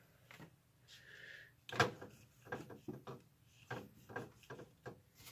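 Hand working in the printhead carriage of an HP Photosmart Plus B209a printer, making irregular light plastic clicks and knocks, the sharpest about two seconds in.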